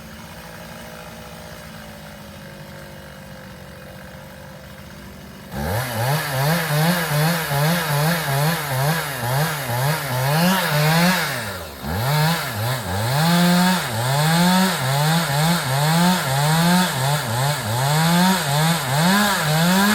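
A chainsaw cutting into a tree trunk. For the first five and a half seconds there is a quieter steady hum, then the saw comes in loud and its engine speed swings up and down about once a second as it bogs and recovers in the cut, dipping briefly about midway.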